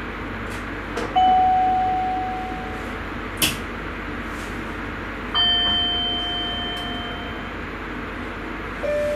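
Three single bell-like chimes in a Sprinter train's driver's cab, each ringing and then fading over a few seconds, over the steady running noise of the train. A sharp click comes between the first two chimes.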